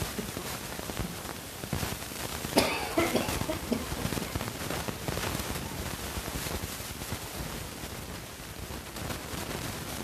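A person's dry, throaty cough about two and a half seconds in, over a steady background hiss, with a few fainter sharp sounds a little later. It is the kind of cough that, for this cougher, usually comes before the season's first cold.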